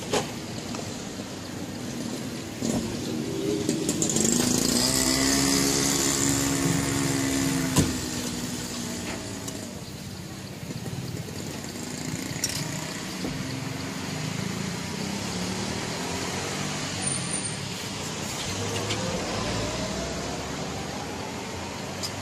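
Road traffic passing: a heavy vehicle's engine grows loud about four seconds in, with a high hiss, and fades by about nine seconds. A sharp knock comes near the middle, and another vehicle speeds up near the end.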